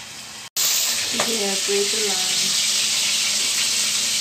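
Chicken liver and gizzard sizzling loudly as they fry in hot oil in a wok, stirred with a spatula. The sizzling starts abruptly about half a second in.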